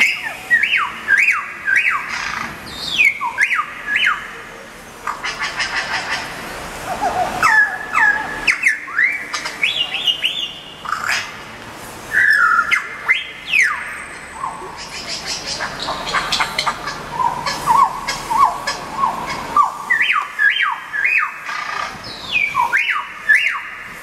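Recorded bird calls played through handheld loudspeakers: a dense string of quick chirps and squawks, mostly short falling whistles, with a few brief lulls.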